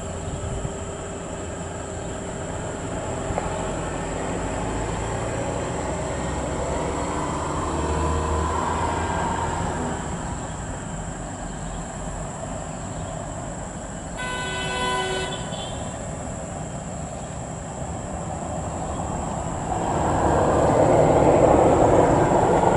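Volvo FH16 dump truck's diesel engine running at low speed on a gravel haul road, growing louder near the end as it comes closer. A horn sounds once, a single blast of about a second, a little past halfway.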